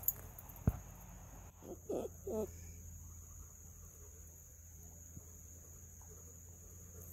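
Faint steady chorus of insects, crickets by their sound, keeping up one unbroken high drone. A single click a little under a second in and two short pitched sounds around two seconds in stand out over it.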